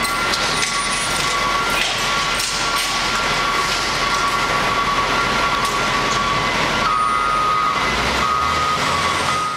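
Garbage truck diesel engine and hydraulics running steadily, with a high whine over the engine noise; the whine steps up in pitch about seven seconds in.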